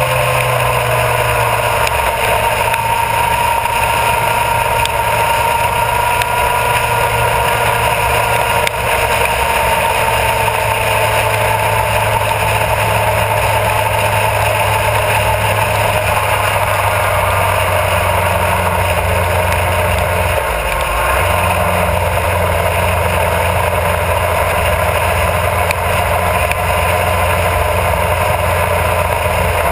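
Honda CBR1000RR Fireblade's inline-four engine running at a steady cruise, with wind rushing over the microphone and road noise. The engine note sinks slightly over the first few seconds, then holds steady, with a brief change in the engine note about two-thirds of the way through.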